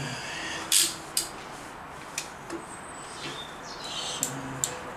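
Sharp clicks and knocks, about half a dozen spread over a few seconds, as a CO2 fire extinguisher is handled and set in place by a welding set. The loudest comes about a second in.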